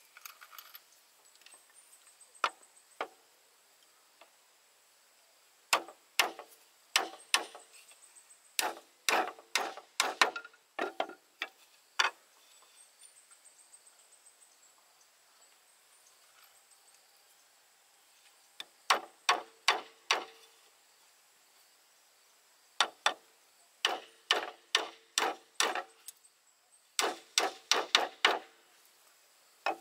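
Bamboo being struck with a hand tool: sharp, ringing blows in runs of three to eight, about two to three a second, with pauses of a few seconds between runs.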